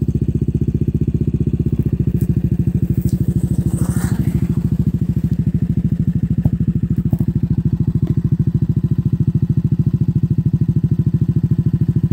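Yamaha Aerox 155's single-cylinder four-stroke engine idling through a Krace aftermarket racing exhaust: a steady, even throb from the silencer.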